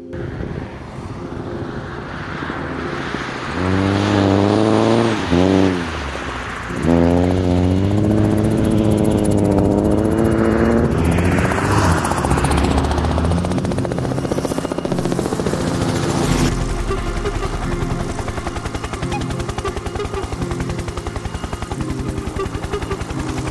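Race car engine revving hard as it drives past on the ice track, its pitch climbing and dropping through gear changes. About two-thirds of the way through, the sound cuts to a steadier, evenly rhythmic pattern.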